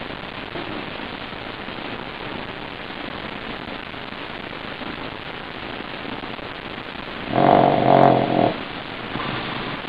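A pug lets out one loud, pitched grunt about a second long, about seven seconds in, over a steady low hiss.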